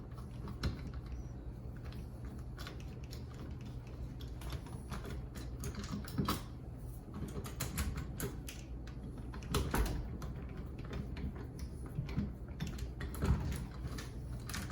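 An exterior doorknob being taken off the door: irregular light clicks and taps of a screwdriver and loose metal knob parts, coming thicker about halfway through, over a low steady hum.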